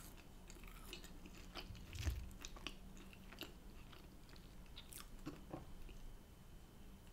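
Faint, close-miked chewing of homemade chips, with small wet mouth clicks and a soft thump about two seconds in.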